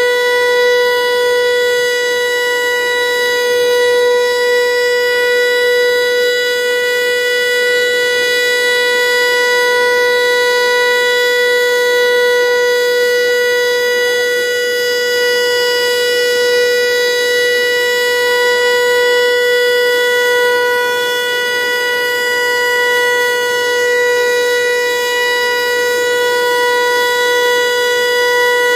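Federal Signal Eclipse 8 electronic outdoor warning siren sounding a loud, steady alert tone: one held pitch with its overtones that does not rise or fall.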